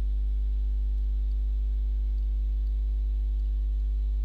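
Steady low mains hum with a stack of evenly spaced overtones.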